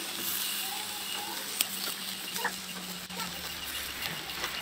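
Tiger prawns sizzling on a wire grill over charcoal as they are turned with metal tongs, with a sharp click of the tongs on the grill about one and a half seconds in. A few faint animal calls sound in the background.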